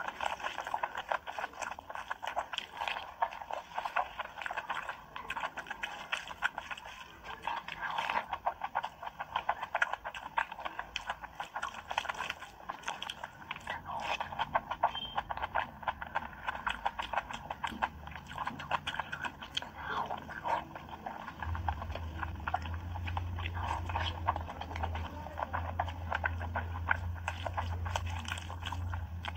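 Close wet chewing and lip-smacking of a full mouthful of curry and rice, mixed with squishing as a hand works the soaked rice. About two-thirds of the way through, a steady low hum comes in underneath.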